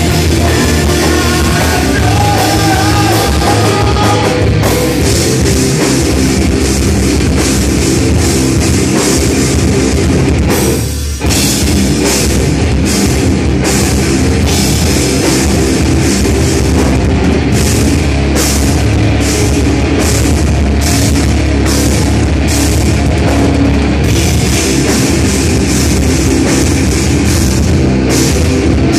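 A live heavy metal band playing loud: distorted electric guitars and a drum kit pounding out hard accented hits on the beat. The sound drops out for a moment about eleven seconds in, then crashes back.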